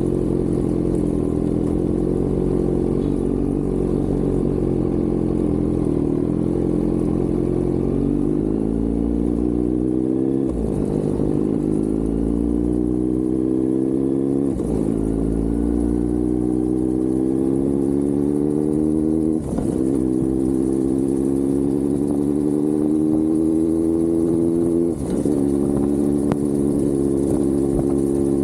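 Kawasaki Z900's inline-four engine and exhaust under way. It runs steadily for several seconds, then accelerates with the pitch rising through the gears, dropping sharply at each of four upshifts.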